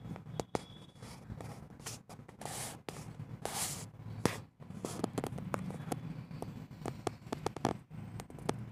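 Pencil scratching on notebook paper as short pattern strokes are written: sharp ticks and a few longer scratches, over a low steady hum.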